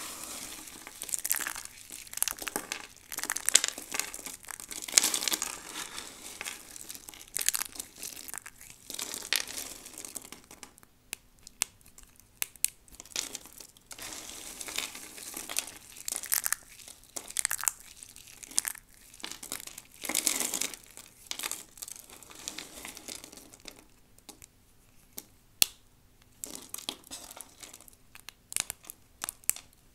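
Dry soap crunched and crumbled between the fingers: an irregular run of crisp crackles and snaps, dense in the first half, then sparser with a few single sharp cracks near the end.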